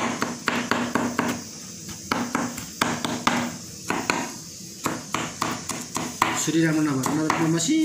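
Kitchen knife chopping garlic and onion on a plastic cutting board: a steady run of quick knocks as the blade strikes the board, several a second.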